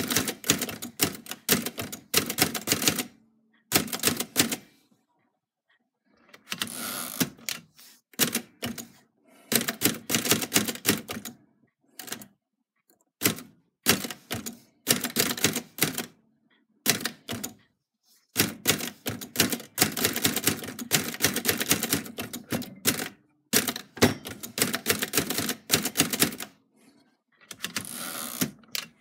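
Typebar typewriter typing: quick runs of key strikes broken by short pauses. Near the end the carriage is returned and the paper advanced a line.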